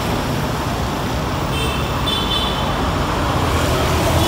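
Road traffic passing close by: minibus and motorcycle engines running steadily. A brief high-pitched tone sounds about a second and a half in.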